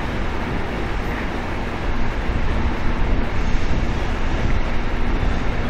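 Wind buffeting the microphone in a steady low rumble, with a train faintly audible beneath it as it pulls away down the station tracks.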